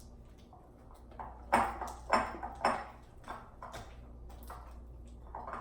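Slime being stirred in a bowl: a run of short clicks and knocks, about two a second, loudest from about a second and a half in.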